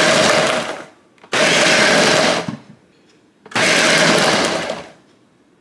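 Countertop blender pulsed in three short bursts about a second long, each separated by a brief pause, chopping chilies, peanuts and sesame seeds in oil. The short pulses keep the salsa macha coarse and chunky rather than smooth.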